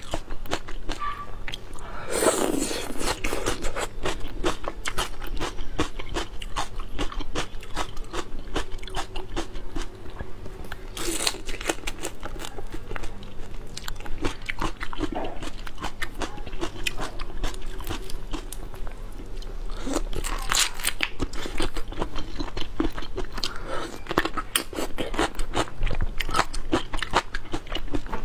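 Large shrimp being peeled and eaten close to a clip-on microphone: a steady stream of small crackles and clicks of shell and flesh, with louder bursts of crunching about two seconds in, around eleven seconds and around twenty seconds.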